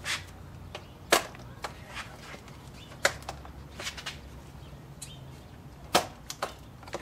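Hand tools and removed parts being handled during disassembly: a handful of sharp clicks and clacks at irregular intervals, the loudest about a second in and near the end, over a low steady hum.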